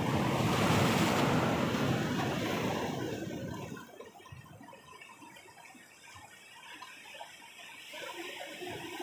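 Ocean surf breaking against boulders: a loud crash and wash for the first three seconds or so, easing to a quieter wash, then swelling again with the next wave near the end.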